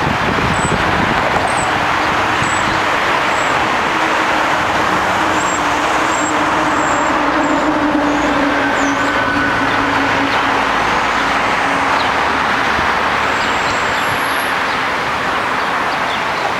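Steady road traffic noise, with one vehicle's engine droning louder through the middle and fading.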